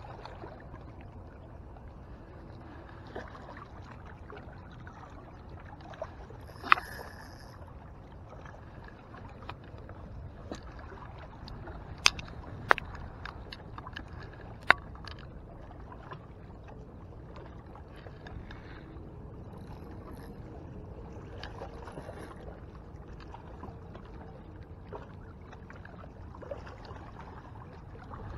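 Steady wind and lapping-water noise, with a few sharp clicks in the middle from handling a spinning rod and reel.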